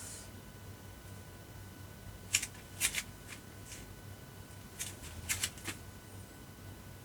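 Hands rubbing and sliding over skin and clothing during a hilot massage. The dry swishing strokes come in two short clusters, a few strokes about two to four seconds in and another quick run about five seconds in.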